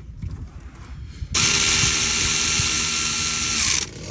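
A small electric power tool running steadily for about two and a half seconds, starting a little over a second in and stopping abruptly.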